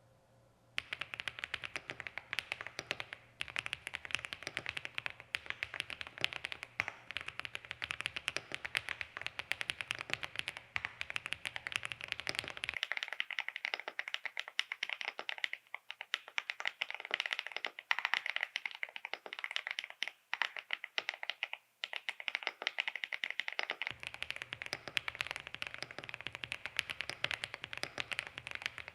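Steady, fast typing on a full-aluminium Monstargear Stella 100 mechanical keyboard fitted with lubed TTC Holy Panda V2 tactile switches: a dense stream of keystroke clacks. The typing starts about a second in.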